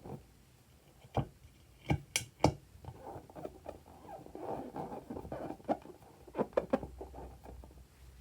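Hands handling slime-making materials: a few sharp taps and clicks, then soft sticky crackling and rustling as the materials are worked, with more clicks near the end.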